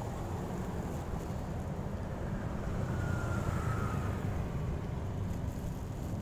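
Steady low rumble of city street background, distant traffic mixed with wind on the microphone, with a faint high whine that falls slightly about three seconds in.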